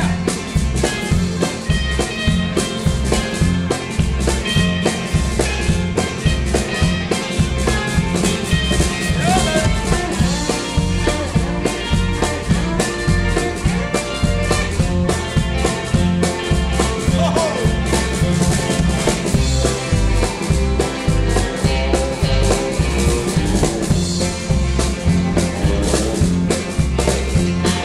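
Live rock-and-roll band playing an instrumental break: a lead electric guitar solo over bass, drums and rhythm guitar, with a steady beat.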